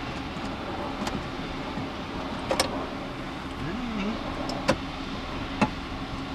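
Four sharp clicks and taps of a T25 Torx screwdriver working the glove box screws under an Audi TT's dashboard, the loudest about two and a half seconds in, over a steady background hum.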